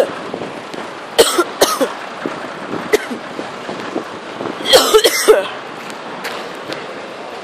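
A person coughing in two short bouts, one about a second in and another about five seconds in.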